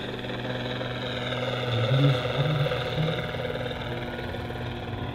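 Large electric scale model helicopter, a Bell AH-1F Cobra with a 3.25 m rotor and an X-Nova XTS 4535 motor, flying steadily overhead: a continuous drone of several steady tones from the motor and drive, with the rapid chop of the rotor blades.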